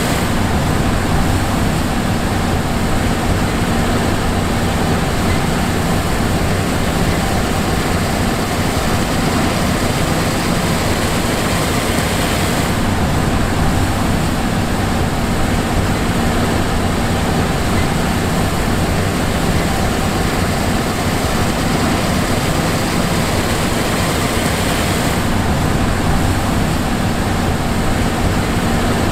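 John Deere S780 combine running steadily, a constant heavy machine drone with a low hum. The higher hiss grows brighter about 13 seconds in and drops back about 25 seconds in.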